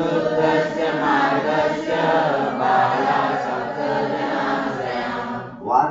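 A group of voices chanting a line of a Sanskrit verse together in unison, in a sing-song recitation.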